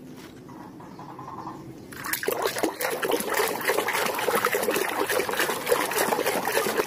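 A hand sloshing and splashing plastic toys around in a tub of muddy water to wash them. It starts about two seconds in, after a quiet start, and keeps going as a busy run of splashes.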